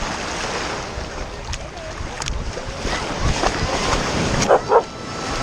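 Ocean surf and wind buffeting the microphone of a GoPro worn on a dog's back, a steady rushing noise with low rumble. Two short barks stand out near the end.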